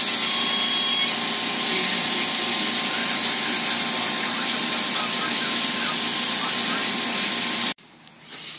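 A loud, steady rushing hiss of air or shop machinery that cuts off abruptly about eight seconds in, leaving only quiet room sound.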